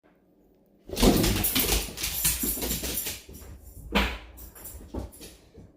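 A pet dog playing rough: noisy scuffling with short vocal sounds mixed in, loudest soon after the start, then two brief sounds near the end, one falling in pitch.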